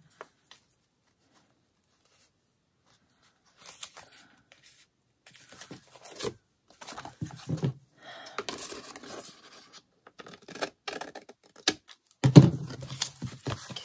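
Paper handling: hands rubbing and pressing freshly glued paper pieces flat onto a book page, with soft rustling and scraping. Near the end comes a louder rustle and knock as the paper is picked up.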